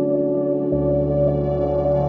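Ambient music of long held, synthesizer-like tones, with a deeper bass note coming in under them partway through.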